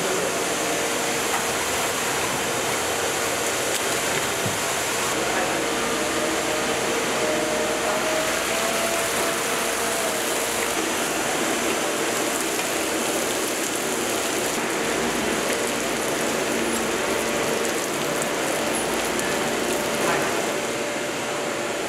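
Steady mechanical hum and hiss of brewery machinery, with a faint steady whine running through it.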